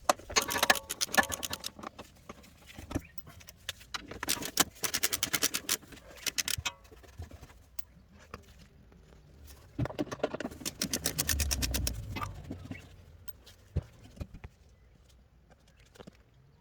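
Three bursts of rapid metallic clicking from hand tools at work in the engine bay, the last with a low rumble under it, with scattered light taps between.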